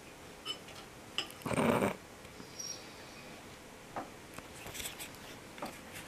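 A German shorthaired pointer begging at a table gives one short, noisy huff through its nose about a second and a half in, with a few faint clicks around it.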